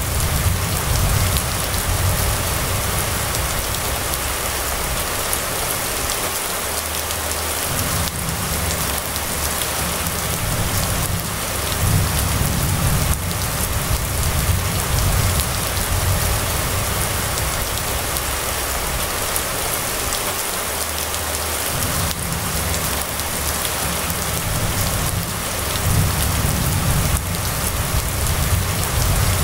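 Steady rain falling, with a low rumble underneath that swells and fades every few seconds.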